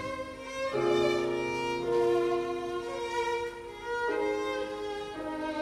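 Male school choir singing slow, sustained chords, moving to a new chord about a second in and twice more near the end.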